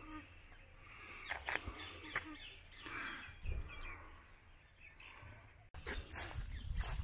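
Birds chirping over outdoor background noise, with scattered short clicks. Just before the end the sound cuts suddenly to a louder, busier stretch.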